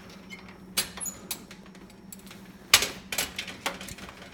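Small plastic and metal parts of a Wacom Graphire 3 mouse clicking and tapping as it is taken apart by hand: a string of irregular light clicks, with the sharpest one about two and three-quarter seconds in.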